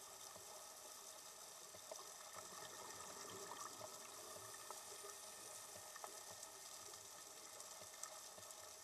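Faint underwater ambience: a steady hiss with scattered small clicks and crackles.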